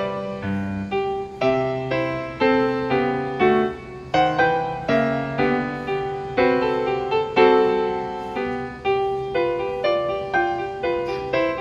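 Background piano music: a gentle run of struck notes and chords, each one fading before the next.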